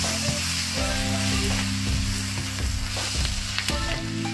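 Chopped onions and spice masala sizzling in a nonstick frying pan, stirred and scraped with a silicone spatula.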